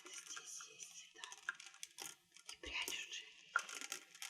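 Crystals tapped and clinking against each other, a run of light clicking taps with a couple of brief bright pings.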